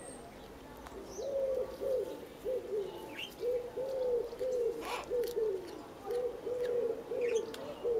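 A dove cooing repeatedly in three phrases of coos, starting about a second in, with a few soft crunches from a cat chewing blades of cat grass close by.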